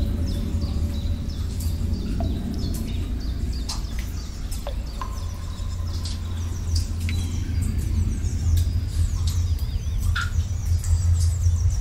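Nature ambience: many small birds chirping and twittering, with a few water drips plinking, over a steady low drone.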